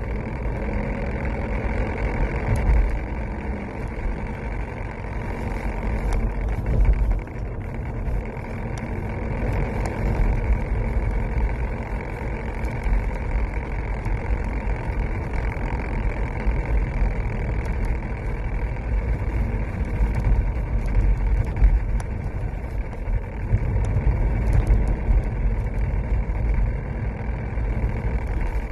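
Mercedes-Benz W203 on the move: a steady low road-and-drivetrain rumble with faint scattered ticks, carrying the strange noise from around the automatic gearbox selector. The cause turned out to be the parking brake cable, its clips broken, catching on the propeller shaft.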